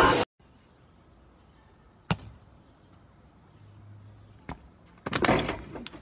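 A few sharp knocks, then near the end a louder jumble of impacts and scraping, as a person falls onto a concrete path.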